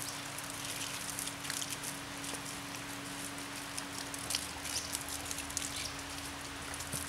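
Campfire embers in a stone fire pit sizzling as water is poured onto them to put the fire out: a hiss of steam under a fast, irregular scatter of small crackles and pops.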